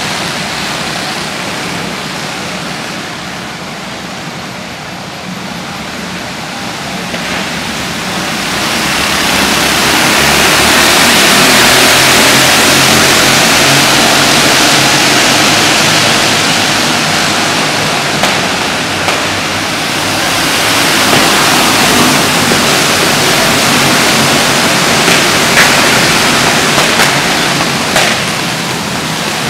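Many racing go-kart engines running together as a pack, a dense din that swells about eight seconds in as the field comes past and stays loud. A few sharp ticks stand out near the end.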